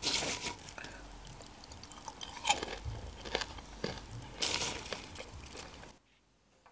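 Popped popcorn rustling and crackling as a hand scoops into a wooden bowl, in irregular dry bursts, loudest at the start and again about two and a half and four and a half seconds in. It stops about six seconds in.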